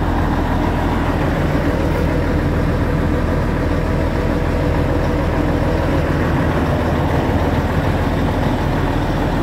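Large diesel excavator engine idling steadily, a constant low engine drone with no change in speed.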